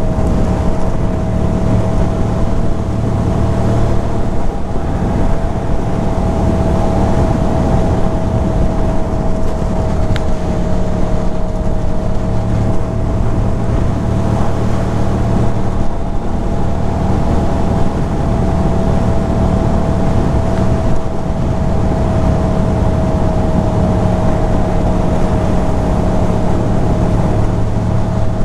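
2006 Ducati Monster 620's air-cooled L-twin engine running at a steady highway cruise, with wind rushing over the rider's microphone. A steady high note runs through it.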